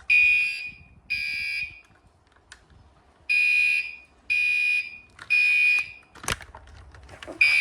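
Gentex Commander 3 fire alarm horn sounding the Code 3 temporal pattern: loud buzzing blasts in groups of three, with a pause of about a second and a half between groups, set off by a pulled Kidde pull station. A sharp knock about six seconds in.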